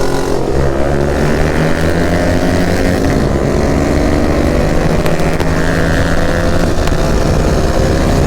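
KTM RC 390's single-cylinder engine running steadily at cruising speed, its pitch holding nearly level with small rises and falls in throttle.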